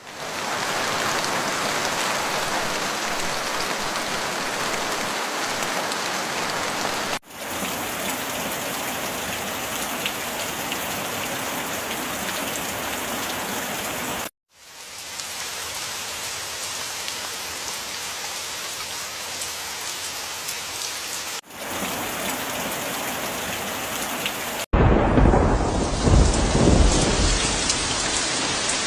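Heavy rain falling steadily, a dense hiss, in several stretches joined by brief cut-outs. Near the end a deep rumble of thunder comes in under the rain.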